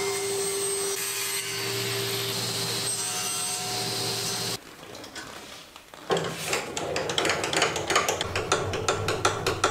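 ULMIA table saw running steadily while a small strip of wood is cut. Partway through, the sound breaks off. From about six seconds in comes a rougher scraping, rubbing noise with many quick clicks.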